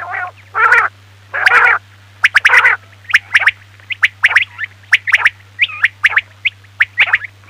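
Recorded quail calls of the kind played to lure quail for hunting. First come a few longer, throaty calls, then a quick run of short, sharp, sliding notes, about two a second, over a faint steady low hum.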